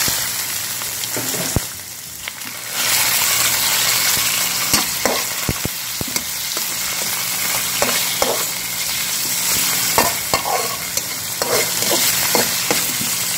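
Raw chicken pieces and chopped garlic sizzling in hot oil in a wok while being stir-fried, with the slotted spatula scraping and clicking against the pan. The sizzle dips briefly about two seconds in, then comes back steady and louder.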